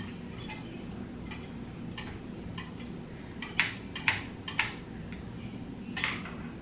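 Sharp clicks of a flat iron being clamped on hair and handled: three in quick succession about half a second apart midway, and one more near the end, over a steady low hum.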